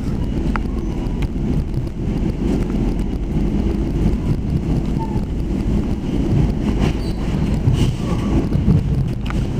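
Steady low rumble of a moving commuter train, with wind buffeting the microphone and a few faint ticks.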